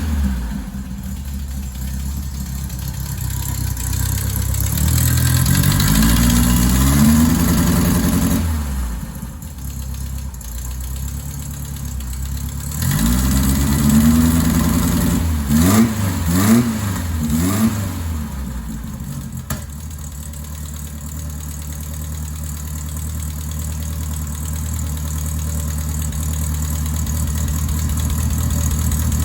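1973 Volkswagen Karmann Ghia's air-cooled flat-four engine running during a tune-up. The revs rise and fall a few seconds in, rise again near the middle in a few quick blips, then settle to a steady idle.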